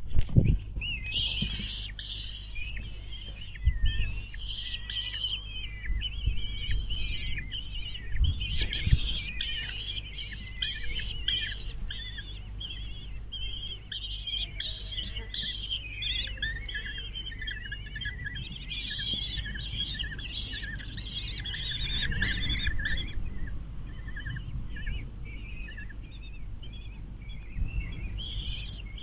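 Common kestrel chicks begging for food with rapid, high chirping calls almost without pause, as the female feeds them a mouse. A few low thumps come through, the loudest right at the start.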